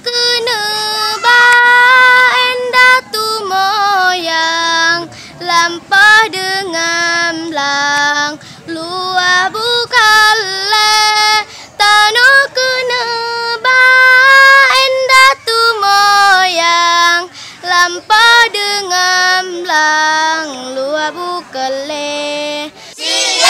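A girl's solo voice singing a slow Acehnese song, with long held notes that glide between pitches.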